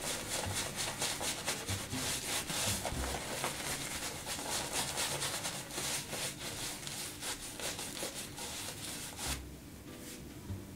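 Omega 10098 boar-bristle shaving brush working lather over the face: a quick run of bristly rubbing strokes that stops about nine seconds in.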